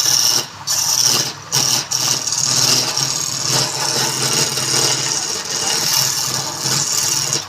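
Wood lathe running with a turning tool cutting the spinning wood: a steady motor hum under a hissing, scraping cut that comes in short strokes for about the first two seconds, then runs continuously.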